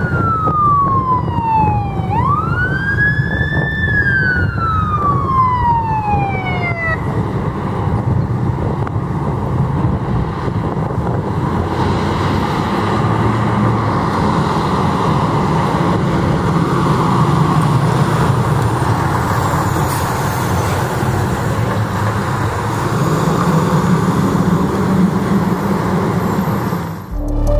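Fire engine siren falling in pitch, swooping up once and sliding down again before stopping several seconds in. The truck's engine and road noise then run loud and steady as it drives past.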